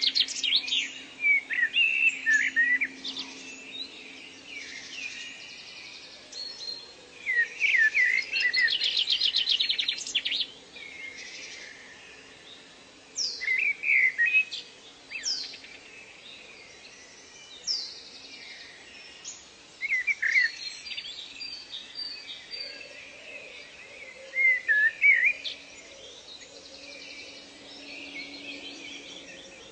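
Several wild birds singing and calling together: short chirps and whistled slides, with bursts of rapid trills, over a faint steady low hum.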